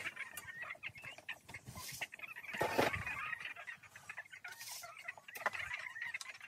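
A flock of brown laying hens clucking, many short calls overlapping, with one louder sound near the middle.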